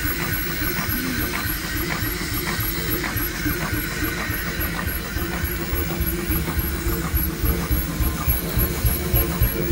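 J.I. Case steam traction engine running steadily: a steady whine over a regular mechanical beat, with the low beat growing heavier and more pronounced near the end.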